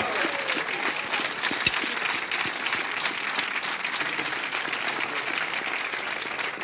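Studio audience applauding steadily, a dense patter of many hands clapping, with a few faint whoops near the start.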